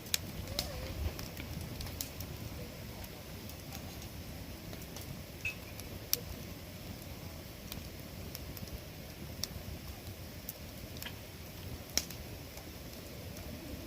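Wood campfire burning: a steady low rumble of flames with scattered sharp crackles and pops, the loudest pops about 6 and 12 seconds in.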